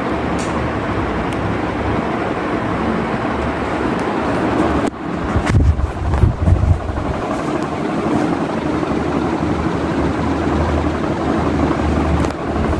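Ceiling fan running: a steady rushing of moving air with a low hum. Gusts of air from the blades buffet the microphone, strongest about five seconds in and again near the end.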